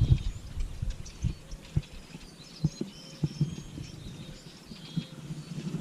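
Soft, irregular low thumps, with a few faint bird chirps.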